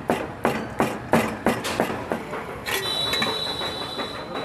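A kitchen knife chopping stuffed malai soya chaap on a cutting board, with even knocks about three a second that become sparser after the middle. A steady high tone joins about three seconds in.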